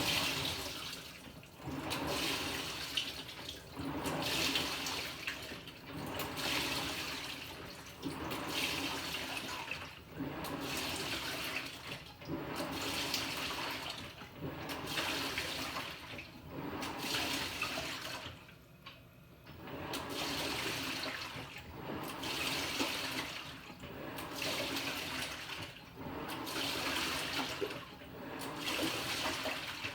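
Panasonic NA-FA100H9 top-loading washing machine agitating its load, water sloshing in the tub with a swish about every two seconds as the pulsator churns back and forth, with a brief lull a little past halfway.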